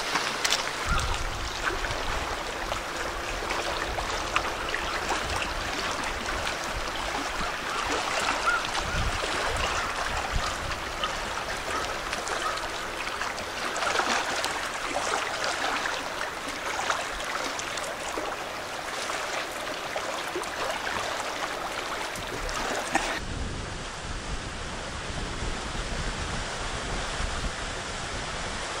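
Steady wash of small waves on the shore of the Saguenay fjord, with gusts of wind buffeting the microphone.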